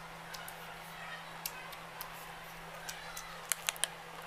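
Close-up eating sounds: quiet chewing and mouth noises with scattered small clicks, then three sharp crackles near the end as a plastic water bottle is picked up to drink.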